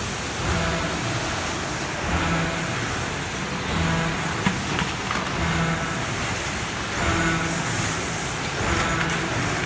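Packaging-line machinery running, including conveyors and a checkweigher. It makes a steady mechanical din that swells in a regular cycle roughly every one and a half seconds. A single sharp click comes about four and a half seconds in.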